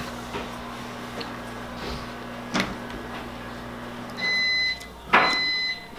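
A steady low electrical hum stops about four seconds in, and an electronic beeper then sounds twice, each beep a high steady tone lasting just over half a second.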